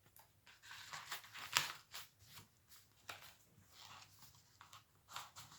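Paper rustling and sliding as journal pages and tucked-in paper cards are handled, in short irregular rustles, the loudest about a second and a half in.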